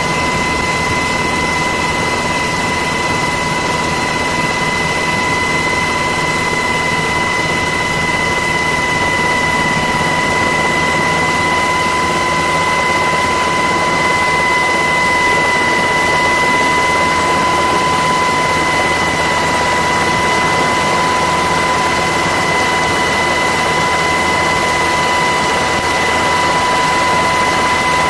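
Aircraft turbine engines running steadily: a constant high whine over a broad, even rush of engine noise.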